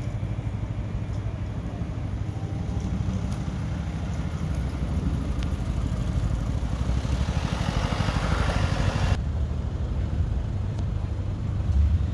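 Street traffic: a steady low rumble of road vehicles, with a hiss that builds from about six seconds in and stops abruptly a little after nine seconds.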